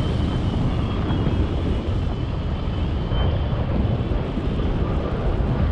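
Airflow buffeting the microphone of a camera on a paraglider pilot's harness in flight: a steady, dense rumble with hiss above it, and a faint thin high tone through the first half.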